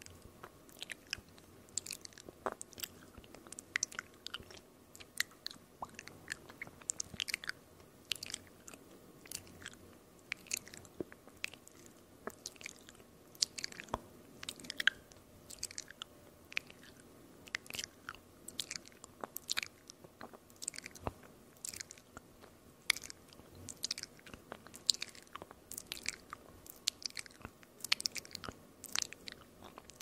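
Close-miked ASMR mouth sounds: sharp tongue and lip clicks and pops, several a second in an irregular stream, with no talking.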